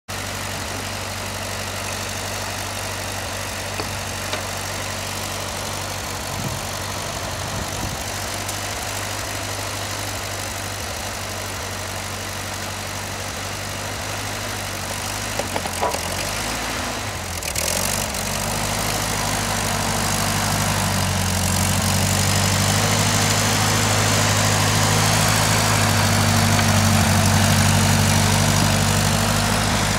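Ford 8N tractor's four-cylinder flathead engine idling steadily, with a few clunks about halfway through. The engine then dips and picks up and runs louder and faster as the half-tracked tractor drives off through the snow.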